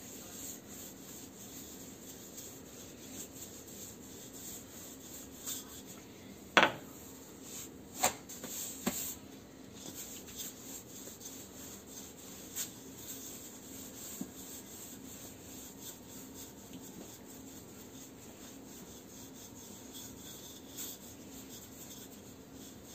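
Wooden rolling pin rolled back and forth over soft yeast dough on a floured granite countertop: a faint rubbing, with a few sharp knocks, the loudest about six and a half seconds in.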